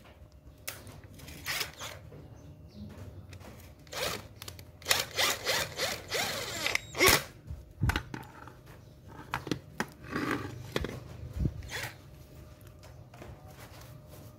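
Handling noises from the plastic housing of a handheld electric wood-cutting saw as its handle is fitted: clicks, knocks and rubbing, busiest between about four and eight seconds in, with a sharp click near seven seconds. The motor is not running.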